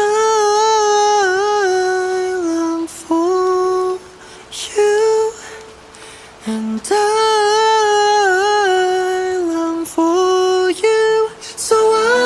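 Solo male pop vocal singing a slow, unaccompanied melody, with no instruments behind it. Long held notes waver slightly in pitch, in phrases of one to three seconds with short breaths between.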